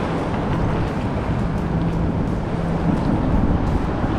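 Steady wind and water noise on the microphone, with a faint low hum midway through.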